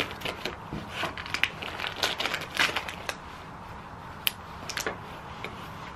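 Bag of home-dehydrated food being handled, crinkling and rustling in irregular bursts with a few sharp clicks.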